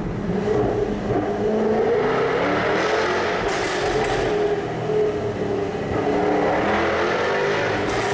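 Jaguar F-Type's engine and exhaust heard from inside the car as it drives through a road tunnel. The engine note rises and falls as it accelerates and eases off, with the tunnel walls echoing it.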